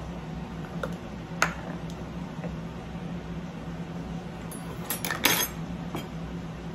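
Kitchen utensils and measuring cups clinking and tapping against a mixing bowl while flour is measured out, with a louder clatter about five seconds in. A steady low hum runs underneath.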